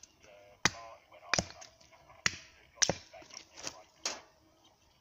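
Hatchet chopping small sticks of kindling on a log chopping block: six sharp chops at uneven intervals.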